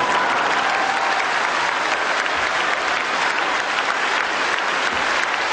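Theatre audience applauding: dense, steady clapping throughout.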